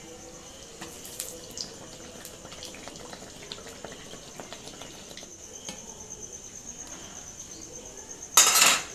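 Hot oil sizzling and crackling around a mango pakwan pitha frying in an iron wok, with the pitha turned over by a slotted spatula. A cricket chirps steadily from about halfway through, and a short loud rush of noise comes near the end.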